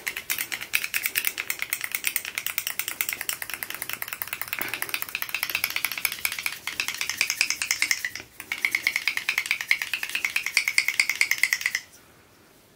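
Glass nail polish bottle shaken hard, its mixing ball rattling fast and evenly against the glass to blend restorer thinner into separated old polish. There is a brief pause about eight seconds in, and the rattle stops shortly before the end.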